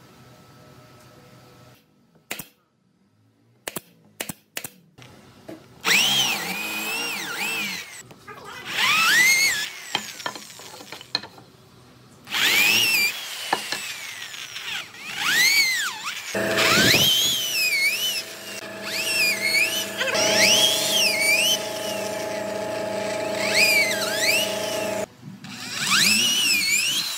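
Electric hand drill boring holes into a wooden chair frame, its motor whine rising and falling in repeated surges as the trigger is squeezed and eased, with a steadier run in the second half. A few sharp taps come shortly before the drilling starts.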